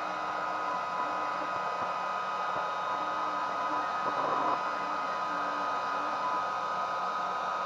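Ikier 70-watt diode laser engraver running: a steady fan-like rush with a constant high whine. Short low hums come and go as the laser head moves over the plywood.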